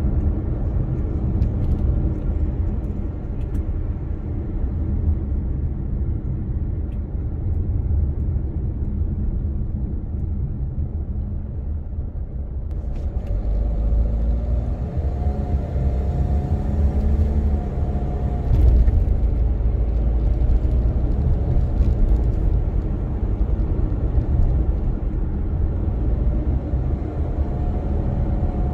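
Car driving on city streets: a steady low rumble of engine and tyre noise. It grows louder about halfway through, with a faint whine that wavers up and down in pitch.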